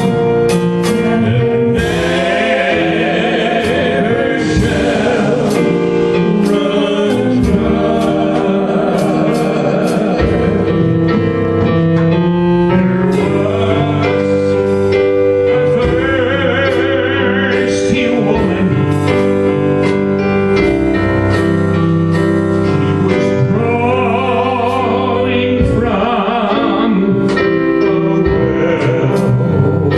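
Worship song being sung over keyboard accompaniment, with sustained held notes.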